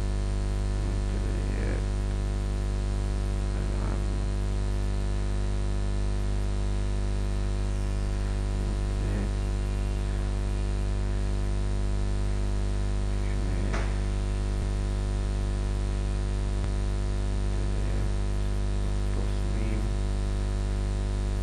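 Steady electrical mains hum with a constant hiss underneath, and a few faint, brief sounds scattered through it.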